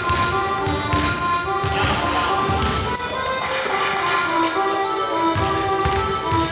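Basketball game sounds on an indoor court: the ball bouncing on the floor and sneakers squeaking now and then, over steady background music.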